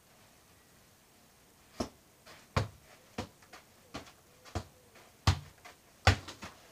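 A football on a hand-held tether cord being kicked and bouncing on artificial grass: about ten short, uneven thuds starting about two seconds in, the loudest near the end.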